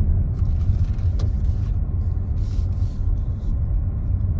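Car being driven, heard from inside the cabin: a steady low rumble of engine and tyres.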